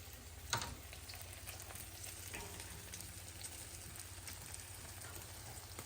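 Golden-browned chicken breasts sizzling steadily in oil in a pan just moved off the burner, with a single sharp knock about half a second in.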